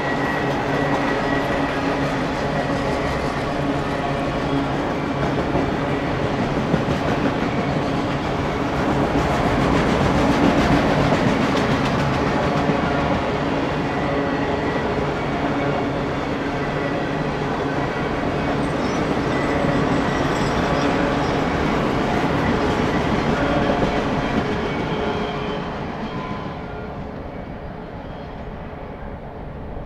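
Freight train of autorack cars rolling past on the rails: a steady rumble of wheels on track with faint thin high tones over it. The sound fades away near the end as the last car moves off.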